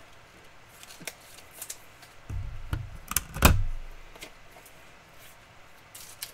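A sports card being fitted into a clear hard plastic holder: light plastic clicks, a low thud about two seconds in, then a sharp snap with a thump about three and a half seconds in, the loudest sound, and a last faint click near the end.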